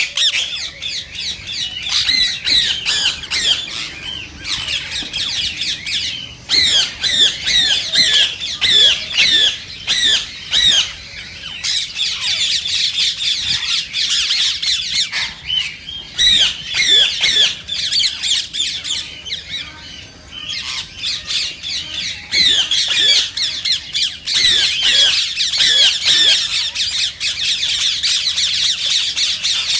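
Green Indian ringneck parakeets calling: rapid, high-pitched squawks and chirps in a near-continuous stream, with a few short lulls.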